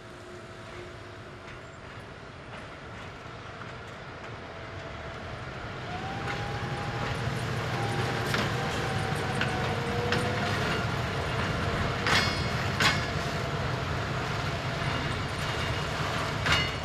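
Freight railway wagons rolling slowly past, with a steady rumble that grows louder about five seconds in. A few sharp metallic clanks from the wheels and couplings come through it, along with a faint drawn-out squeal.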